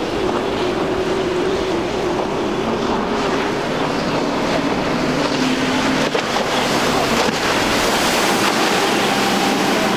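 Twin Yamaha 300 hp outboards on a Scout center-console boat running at speed through rough water, with the rush of spray and waves off the hull. The engine note drops lower about halfway through.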